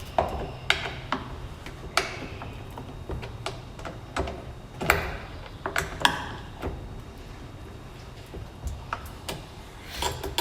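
Scattered clicks and light knocks at irregular intervals, as of tools and metal parts being handled, over a low steady hum.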